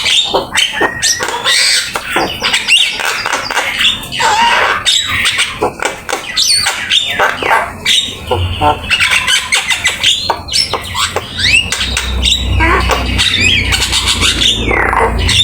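Javan myna (jalak kebo) singing without a break: a rapid, varied jumble of whistles, gliding notes and harsh squawks, the busy mimicry-filled song that keepers call "gacor, full isian". A low rumble joins underneath from about halfway through.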